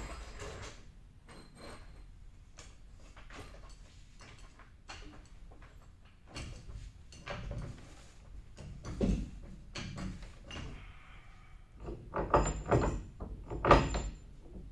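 Hand tools knocking and clanking against the steel housing of a sweeper attachment as its brush bolts are worked with a long-handled wrench. The knocks are irregular and grow louder in the second half, and the loudest clanks near the end ring briefly.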